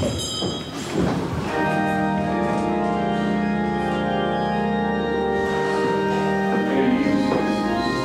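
Church organ playing long held chords, coming in about a second and a half in.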